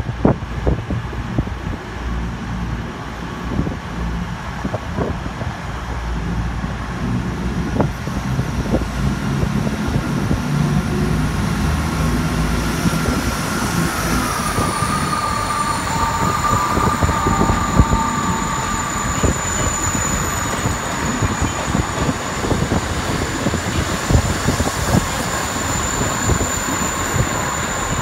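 Diesel multiple units pulling out of the station: the CrossCountry Voyager's underfloor diesel engines throttle up as it departs, with clatter and clicks from the train. Steady high-pitched whines join about halfway through as the South Western Railway Class 159 starts to move.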